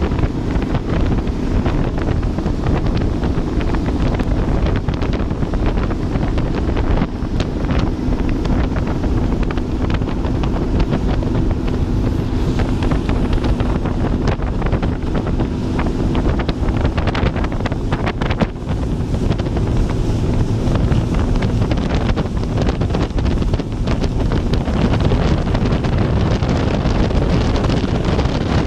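Wind buffeting the microphone on a motorboat under way, with the steady drone of its engine and the rush of water beneath.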